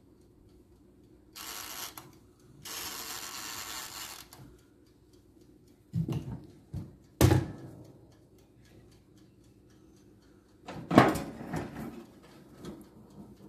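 Two spells of hissing, then a few knocks and a loud metal clunk with a short rattle about eleven seconds in, as the electric oven's door is opened onto the baking cake.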